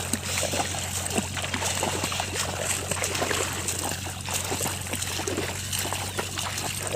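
Shallow water splashing and trickling, with many small irregular splashes and clicks over a steady low hum.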